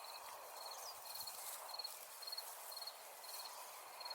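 Cricket chirping faintly: short, quick pulse-trains at one high pitch, about two chirps a second, over a steady hiss.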